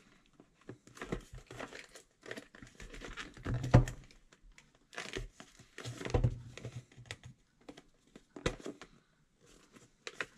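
Product packaging being worked open by hand: irregular crinkling, scraping and tearing noises, with louder knocks about 4 and 6 seconds in.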